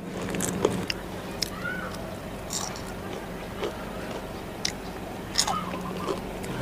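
Close-up chewing of deep-fried pork, with a few short, sharp crunches at irregular moments, over a steady low hum.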